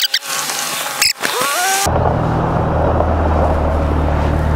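Ford Expedition Timberline's 3.5-litre EcoBoost V6 running. A short rising whine comes over noisy sound at first; about two seconds in the sound changes abruptly to a steady low engine drone.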